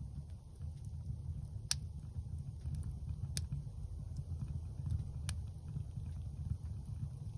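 Split kindling burning in a wood stove: a steady low rumble of flame with a few sharp crackles and pops, the loudest a little under two seconds in.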